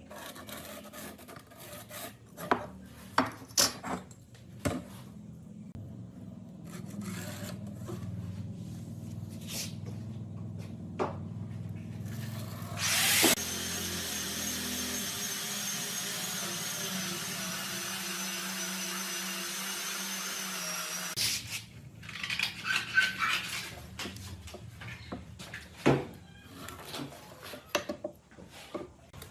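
Woodworking sounds: scattered knocks and taps of wood being handled and worked, and in the middle a power tool runs steadily with a high whine for about eight seconds before cutting off.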